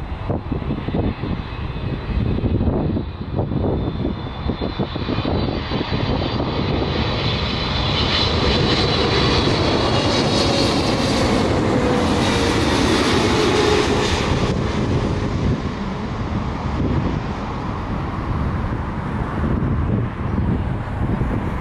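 Twin-engine widebody jet airliner on final approach passing low overhead, gear down: the engines' high fan whine slides down in pitch as it goes by, over a broad rumble that builds to a peak about halfway through and then eases off.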